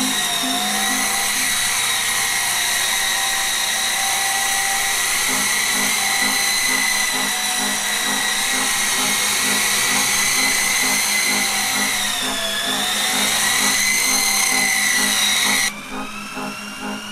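E-flite Blade CX2 coaxial electric RC helicopter running and lifting off, with a steady high electric-motor whine and rotor noise. The pitch dips briefly about twelve seconds in. Near the end the whine cuts off suddenly to a quieter one.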